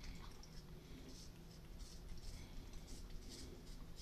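Cat gnawing and chewing kernels off a corncob: faint, irregular clicks and smacks.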